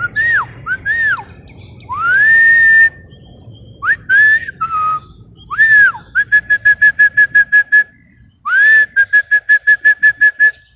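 Clear whistled notes: several quick up-and-down swoops, a long held note about two seconds in, then two runs of rapid staccato repeats of a single note, about six a second.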